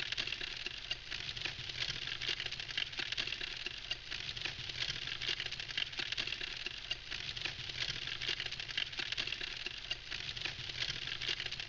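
Wood campfire burning: a steady, dense crackling of many small pops and snaps.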